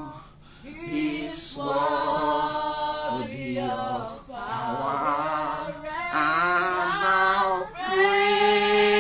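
A man's voice singing a worship chorus unaccompanied, in drawn-out phrases with a wavering pitch, ending on a long held note from about eight seconds in.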